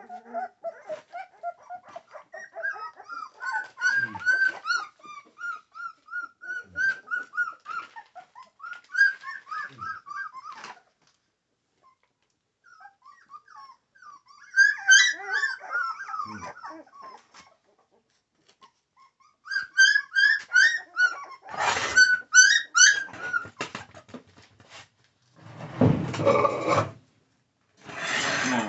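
American Pit Bull Terrier whining in strings of short, high, rising-and-falling cries broken by pauses. Near the end come two short bursts of noise.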